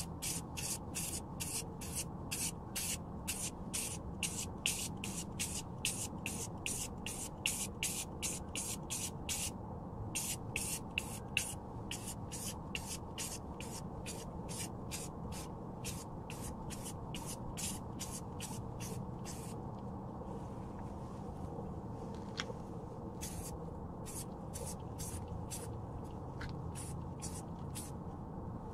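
Aerosol can of rust reformer spraying in rapid short bursts, about three a second, coating a rusty wheel arch. The bursts pause for a few seconds about two-thirds through, then resume.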